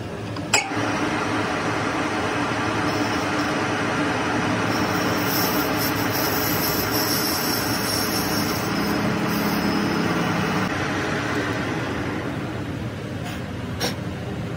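Metal lathe running, its cutting tool machining a brass ring held in the three-jaw chuck, with a steady machine hum and cutting noise. A sharp click about half a second in and another near the end.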